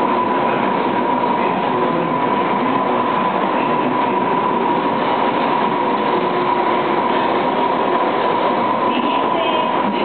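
Single-disc rotary floor machine running steadily, its brush scrubbing a foam-covered wool rug during shampooing: a dense scrubbing noise with a steady whine over it.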